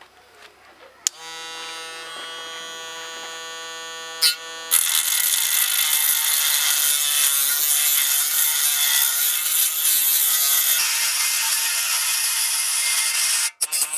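A small handheld rotary tool (mini drill) switched on about a second in, its motor first whining freely, then, from about five seconds in, its cutting disc grinding loudly against the steel screw head that holds the saw's handle to the blade. The grinding breaks off briefly near the end.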